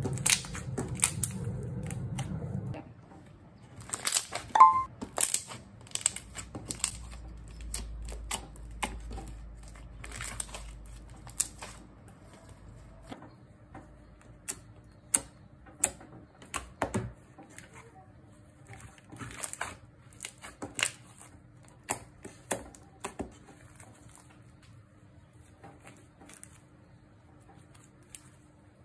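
Thick, clicky slime being pressed, folded and stretched by hand, giving irregular sharp clicks and pops that grow sparser and fainter toward the end.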